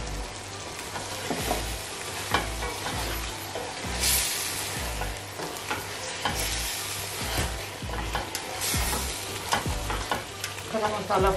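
Chicken pieces sizzling in a thick onion-tomato masala in a stainless steel pot while a wooden spatula stirs them, scraping against the pot about once a second.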